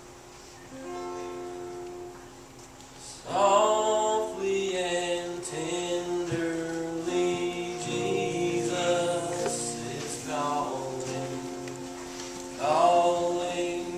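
Male voice singing into a microphone, accompanied by acoustic guitar and piano. A soft instrumental passage comes first, and the voice comes in strongly about three seconds in, with another strong sung entry near the end.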